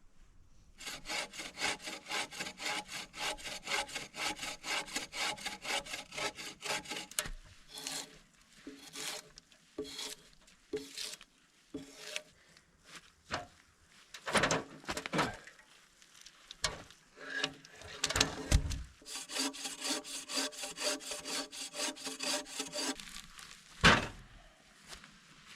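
Hand saw cutting through wood in quick, even strokes, several a second. It stops and starts, with sharp knocks of wood between the runs and one loud knock near the end.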